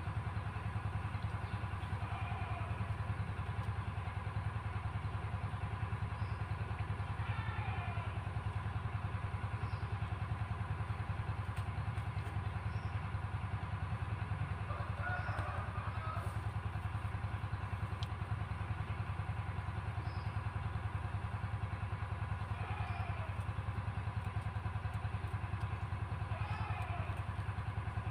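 A small engine running steadily at an even speed, with a few faint short chirps over it.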